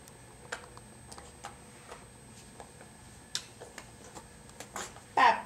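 Scattered small clicks and taps, a few seconds apart, then near the end a short loud vocal sound from a baby, sliding down in pitch.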